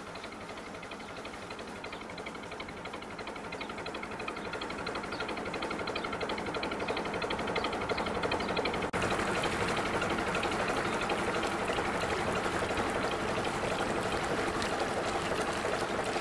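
Steady rushing, trickling water, louder from about nine seconds in.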